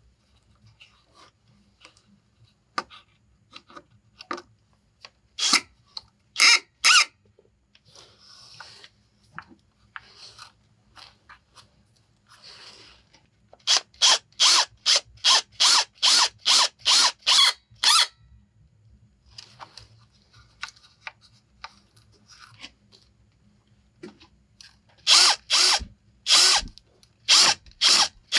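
Cordless drill driving screws into a wooden board on log posts, run in short trigger bursts: a few at first, then a quick run of about a dozen pulses, about three a second, and more near the end. Softer rustling between the bursts.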